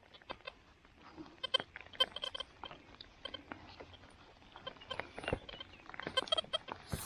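XP Deus metal detector giving short, pitched signal tones several times as it sweeps, mixed with irregular sharp taps and clicks.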